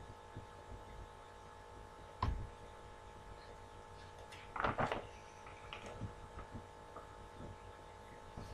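Quiet room tone with a steady low electrical hum, broken by a faint knock about two seconds in and another short faint noise about five seconds in.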